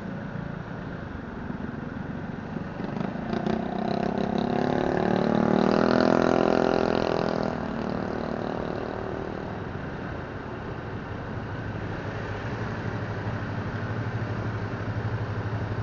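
Motorcycle engine idling while stopped at a traffic light, with surrounding traffic. About four seconds in, a passing motorcycle's engine swells up, loudest near six seconds, and fades by about eight seconds; from about eleven seconds a steady low idle of another engine pulling alongside joins.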